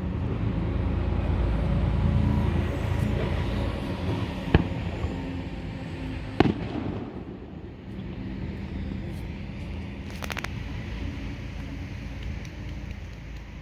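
Fireworks going off: two sharp bangs about two seconds apart, a brief burst of crackling a few seconds later, and a steady low rumble with a faint hum throughout.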